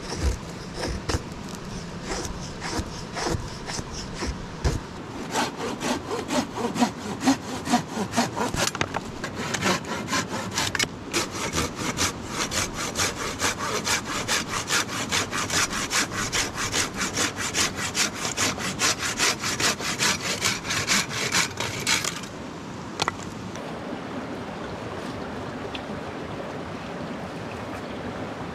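A knife blade shaving curls off a dry wooden stick, then a hand saw cutting through a dry log in fast, even back-and-forth strokes. The sawing stops suddenly about three-quarters of the way through, leaving a steady rushing background.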